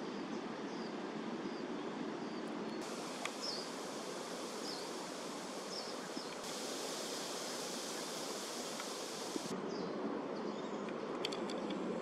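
Outdoor ambience: a steady, even hiss with faint short bird chirps scattered through it and a few light clicks near the end. The upper part of the hiss gets abruptly brighter about three seconds in and again about six seconds in, then drops back near ten seconds.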